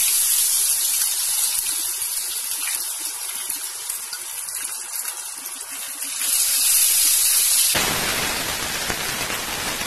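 Spice-coated pomfret deep-frying in hot oil: a steady sizzle that swells louder about six seconds in, with a fuller, deeper rush of frying noise near the end.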